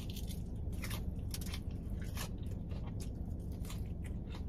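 Crispy fried chicken being bitten and chewed close to the microphone, with irregular crunches several times a second.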